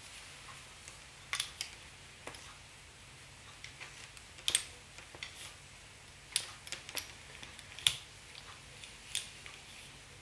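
Small fly-tying scissors snipping off excess marabou at the hook: a series of sharp little clicks at irregular intervals, the loudest about eight seconds in.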